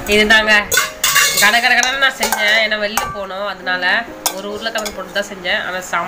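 Flat metal spatula scraping and clinking against a wide metal pan while stirring a dry potato fry, with several sharp clinks among the scraping.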